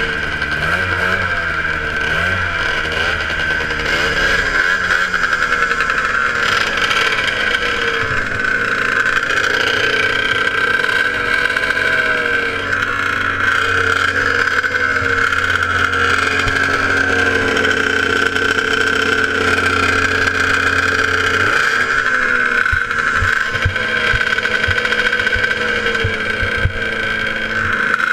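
Two-stroke snowmobile engines running, the nearest a 1977 Polaris TX-L, with a steady high whine over them. The engine pitch rises and falls over the first few seconds and then holds steady. The lower engine note changes about three-quarters of the way in, and a run of low knocks follows near the end.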